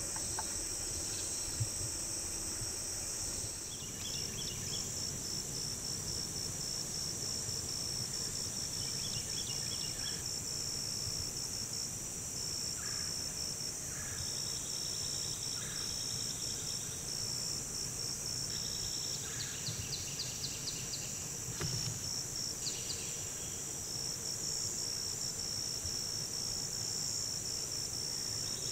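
Insect chorus: a steady high-pitched buzz with a rapid, even chirping pulse running through it. Shorter, lower trills come and go several times over it.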